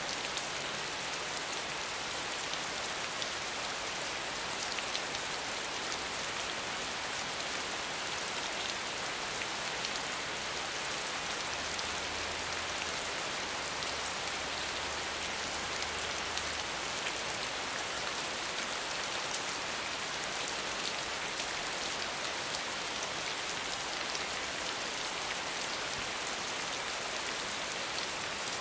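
Steady rain falling on the ground: an even hiss with scattered ticks of individual drops.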